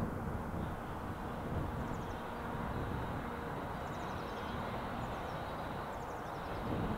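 Steady low outdoor rumble, with a small bird's short descending trill three times, about two, four and six seconds in.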